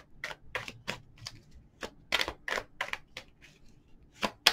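Tarot cards being shuffled and handled, an irregular run of crisp card clicks and slaps, the loudest just before the end.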